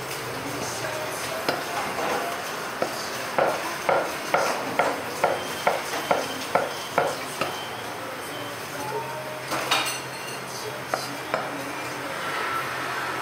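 Cleaver chopping roast duck on a round chopping block: a run of about ten even chops, a little over two a second, with scattered knocks before and after and a louder clatter about ten seconds in.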